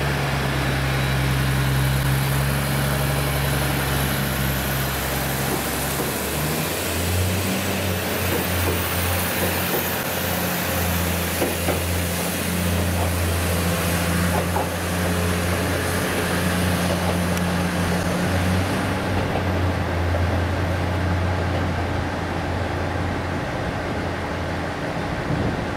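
Diesel railcar engine running steadily, a low hum whose note changes about six seconds in and fades near the end, with a few clicks and clanks in the middle.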